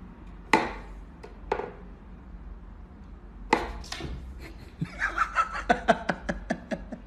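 Wooden whack-a-mole cat toy knocking as its wooden pegs are pushed up and the cat swats at them: a few single sharp knocks, then a quick run of knocks and clicks in the last two seconds.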